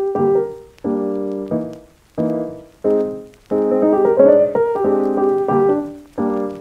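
Background piano music: notes and chords struck every half second to a second and left to fade.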